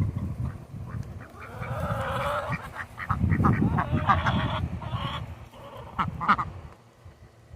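Ducks calling in a series of honking quacks, with a low rumbling noise underneath.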